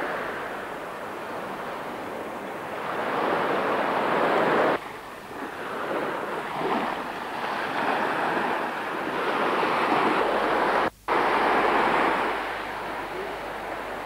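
Small surf washing onto a sandy beach, mixed with wind rushing on the microphone, swelling and easing; the sound drops abruptly about five seconds in and cuts out for a moment near eleven seconds.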